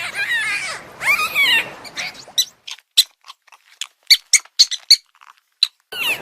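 An animal's high-pitched squeaking: two squealing calls that rise and fall in pitch, then an uneven run of short, sharp chirps.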